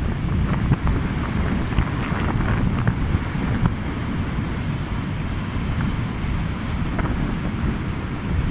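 Strong wind buffeting the microphone, a steady low rumble over the rush and hiss of surf breaking and washing up a sandy beach.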